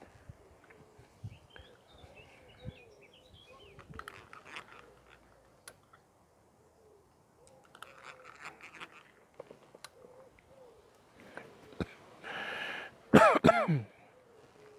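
A man clears his throat with a rasping hawk, then gives a loud harsh cough, near the end. Through the rest, a pigeon coos softly and repeatedly in the background.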